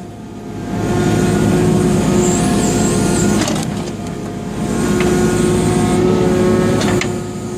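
Excavator's diesel engine running, swelling louder twice as it is put under load while the machine works.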